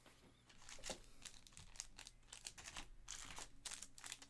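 Faint crinkling with scattered light clicks, as of plastic-wrapped card packaging being handled.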